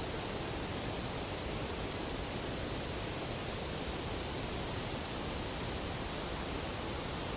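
Steady, even hiss with no distinct knocks, calls or other events standing out of it.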